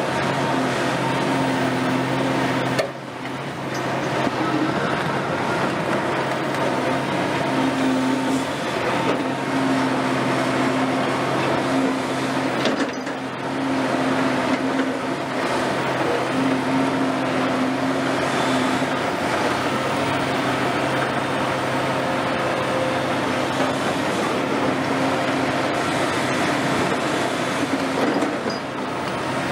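Caterpillar 352F excavator's diesel engine and hydraulics running steadily as the machine works, a constant engine hum under a dense mechanical noise, briefly dropping in level twice, about three seconds in and near the middle.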